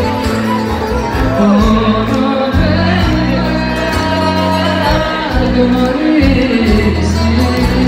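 A woman singing into a microphone with a live band, a bouzouki among the instruments, amplified through a concert hall's PA.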